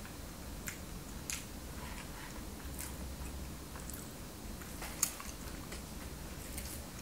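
Person chewing a mouthful of donut: quiet chewing with a few scattered small mouth clicks, the sharpest about five seconds in.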